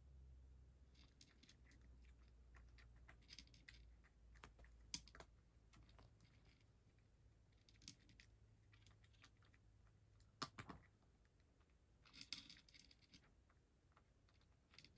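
A cat eating dry kibble from a bowl: faint crunching and clicking of chewing, in small clusters a few seconds apart.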